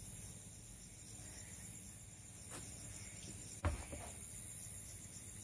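Steady high-pitched insect chorus. A light click comes about two and a half seconds in, and a louder knock about a second later.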